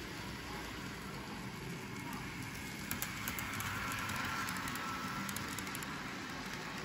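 Toy electric train running on its track, its motor whine and wheel noise getting louder as it passes close about halfway through, with light clicks from the track.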